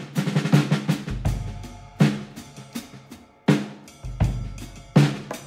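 Music with a drum kit: a steady beat of snare and bass-drum hits, with a deep bass note coming in about every three seconds.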